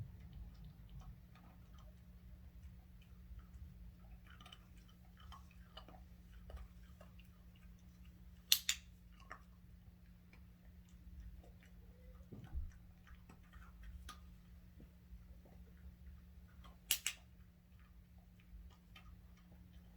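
Two sharp double clicks about eight seconds apart, amid faint scattered ticking and a steady low hum.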